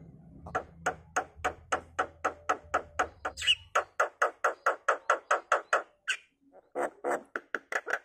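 Javan myna giving a long run of short, harsh repeated calls, about four a second, breaking off briefly around six seconds in and then coming faster.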